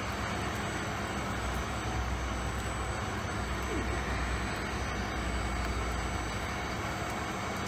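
Steady machinery noise from the equipment of a vacuum-truck waste decant station running: a constant low hum with a few faint steady tones over an even mechanical din.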